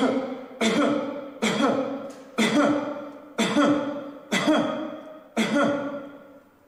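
A person giving deliberate coughs, seven in a row about a second apart, each short and sudden then fading, as a recorded sample for cough-analysis software that screens for COVID-19.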